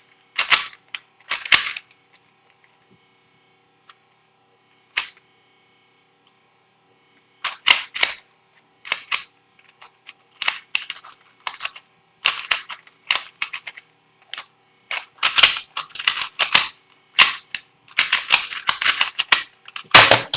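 Plastic V-Cube 2 2x2x2 puzzle cube being turned fast in a speed solve: bursts of rapid clicking and clacking, with a pause of several seconds near the start broken by a single click. It ends with a heavier knock as a hand comes down on the computer keyboard to stop the timer.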